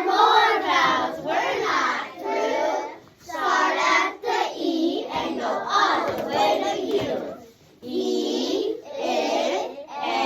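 Voices chanting single phoneme sounds of a phonics rap one after another in a steady rhythm, each sound held about half a second to a second.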